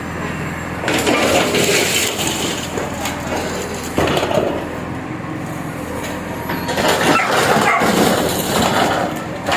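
A bulldozer's engine running steadily during demolition, with loud crunching and cracking of broken material in three stretches: about a second in, around four seconds, and for the last couple of seconds.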